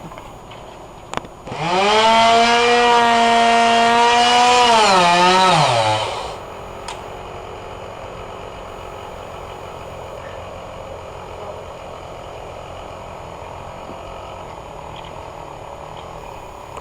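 Two-stroke chainsaw revved at full throttle for about four seconds, holding a steady high pitch. The pitch then falls away, and the saw settles into a lower, quieter running that continues.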